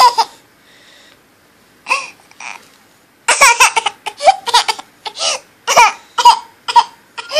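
Baby of about eight and a half months laughing: a brief laugh, a short pause, then from about three seconds in a run of rapid high-pitched giggles in quick short bursts.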